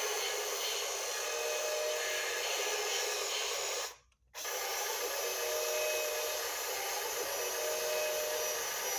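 Battery-powered toy tow truck playing its button-activated electronic sound effect: a steady whirring noise with a short tone that recurs every couple of seconds. It cuts off about four seconds in and starts again at once as a button is pressed.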